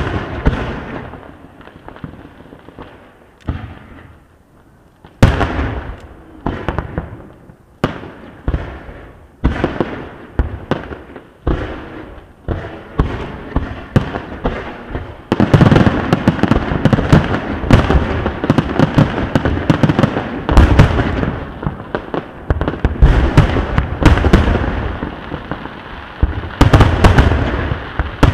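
Aerial fireworks shells bursting in loud booms, each trailing off, at first about a second apart. From about halfway through they become a dense, continuous barrage of overlapping bursts and crackle, like a finale.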